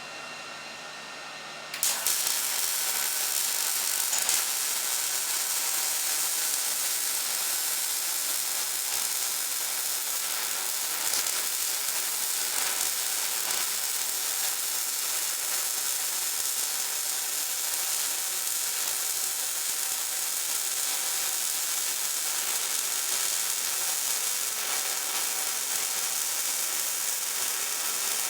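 MIG welding arc from a Millermatic 211 feeding .030 wire onto mild steel under 75/25 argon-CO2 shielding gas: a steady crackling hiss that starts suddenly about two seconds in and runs as one long continuous bead.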